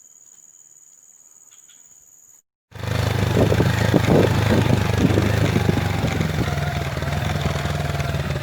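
Insects buzzing steadily and faintly, then after a sudden cut about two and a half seconds in, a motorcycle engine running loudly and steadily.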